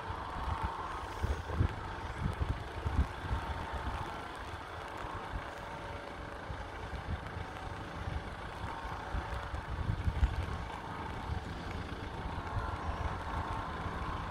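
Irish Rail Class 22000 diesel multiple unit approaching in the distance, heard as a steady faint engine hum, with gusts of wind rumbling on the microphone.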